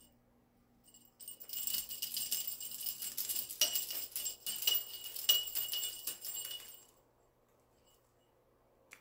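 Small jingle bell shaken, jingling and rattling steadily from about a second in for some five seconds, then stopping.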